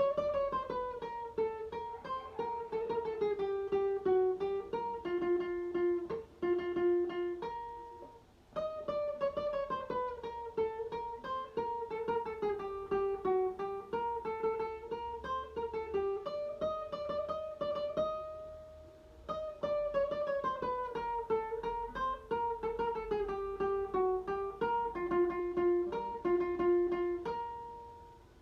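Guitar playing the circus clown riff as a single-note melody: each note picked quickly several times over, stepping down fret by fret in descending runs. The phrase repeats about three times, with short breaks between.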